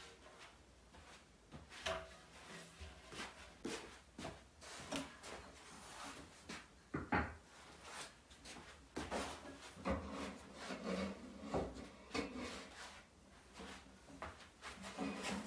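A large rug dragged and smoothed over a hard floor, rustling and rubbing, with footsteps in slippers and scattered soft knocks of furniture being handled; the sharpest knock comes about seven seconds in.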